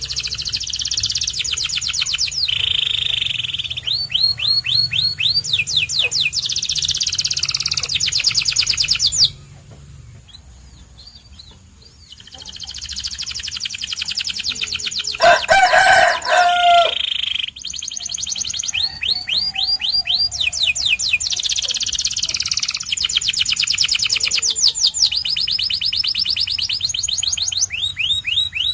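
Canary singing in fast trills, runs of rapidly repeated high notes, each held a second or two before changing to another. The song pauses for a few seconds about a third of the way in. About halfway through, a lower, louder call lasting nearly two seconds cuts across it.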